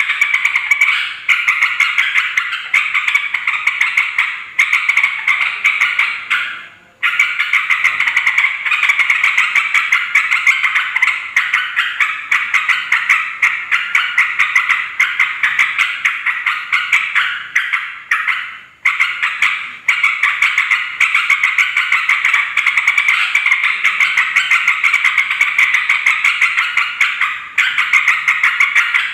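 Yellow-vented bulbuls chattering noisily: a dense, fast run of bubbly call notes. It stops briefly twice, about a third and two thirds of the way through.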